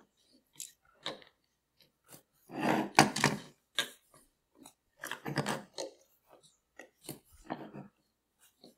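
Small plastic wireless-mic transmitters and receiver handled and set down on a wooden tabletop: scattered clicks and knocks with short sliding scrapes, the sharpest click about three seconds in.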